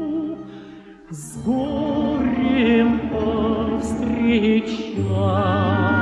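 A male voice sings a slow Russian romance in an operatic style, holding long notes with a wide vibrato, over orchestral accompaniment. The music drops briefly about a second in, and a low bass note enters near the end.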